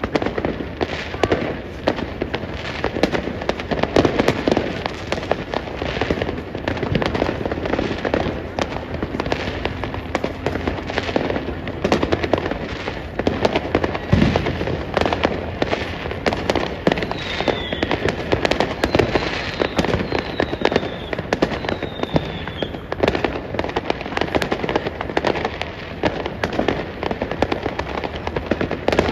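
Many fireworks going off all around at once: a continuous barrage of bangs and crackling, with a few short falling whistles about two-thirds of the way through.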